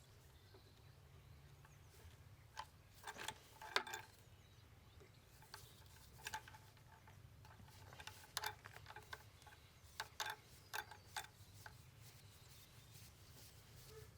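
Faint, scattered metallic clicks and clinks of hand tools and engine parts being handled during disassembly, the loudest about four seconds in, over a low steady hum.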